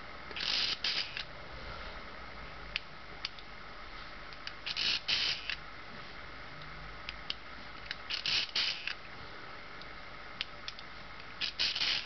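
Curta Type II mechanical calculator's crank being turned through full revolutions, four turns about three and a half seconds apart. Each turn is a short burst of clicking whirr from the geared stepped-drum mechanism, with single small clicks between turns. Each turn subtracts the next odd number in the odd-number square-root method.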